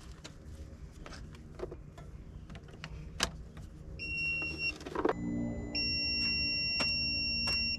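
Light clicks and knocks of clamps and tools being handled at the tractor's battery while a booster pack is hooked up. About four seconds in comes a short high electronic beep. A second later a steady low electrical hum starts, followed by a continuous high beep as the system is powered.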